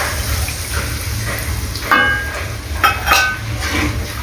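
Shrimp curry sizzling in an aluminium pot as milk is poured into the hot spice paste, over a steady low hum. A metal spatula knocks and rings against the pot three times, about two seconds in and twice near three seconds.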